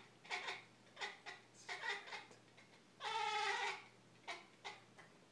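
A Siamese cat making short, bark-like calls in a series at a crow, with one longer drawn-out call about three seconds in.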